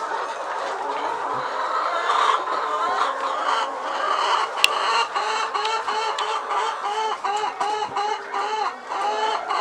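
A flock of laying hens clucking, with many short calls overlapping. A single sharp click comes about halfway through.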